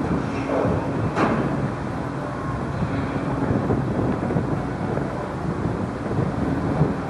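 Car ferry's engines running with a steady low drone, wind buffeting the microphone, and a single sharp knock about a second in.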